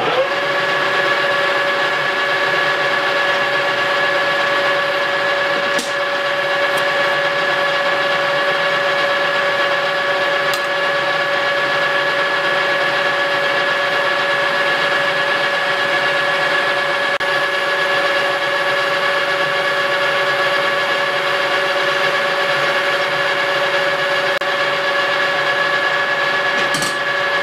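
A metal lathe running with a steady whine while the tool takes a fine facing cut across the end of an aluminum bar, feeding from the center outward.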